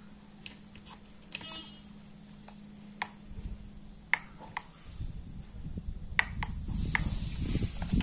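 Small plastic clicks and taps as a plug-in bulb holder with a fridge bulb is handled and pushed into an extension-board socket, with rustling handling noise building over the last few seconds.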